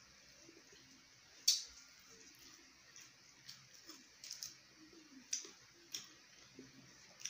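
Eating noises: wet lip smacks and mouth clicks of people chewing grilled pork belly and sucking their fingers, about six short sharp smacks, the loudest about a second and a half in.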